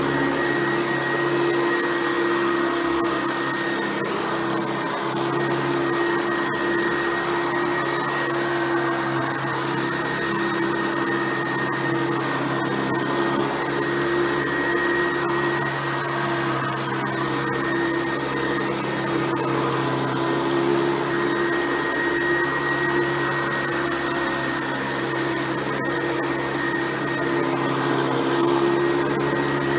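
Hoover Convertible U4349 upright vacuum cleaner running steadily: a constant motor hum with a thin high whine over the rush of air.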